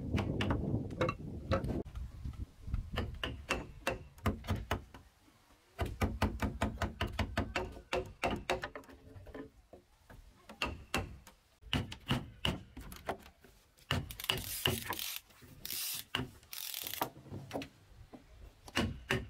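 Wooden mallet striking a steel chisel to chop a mortise in a timber beam: a long run of sharp wooden knocks, several a second, with short pauses. There is a low rumble in the first couple of seconds and a few brief bursts of hiss about three-quarters of the way through.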